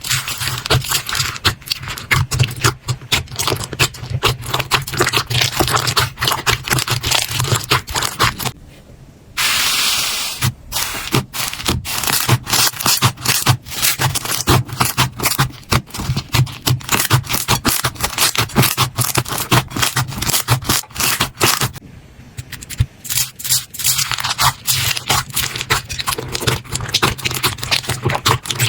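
Slime being squeezed and worked by hand, giving a fast, dense run of small crackling clicks and pops. It breaks off briefly about a third of the way in and again about three-quarters through.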